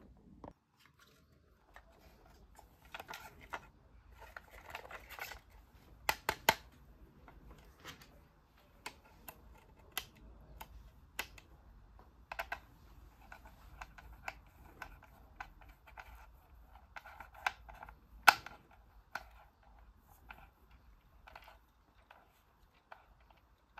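Small plastic toy pieces being handled: irregular light clicks and taps, with stretches of scraping and rustling. A few sharper clicks stand out, the loudest about eighteen seconds in.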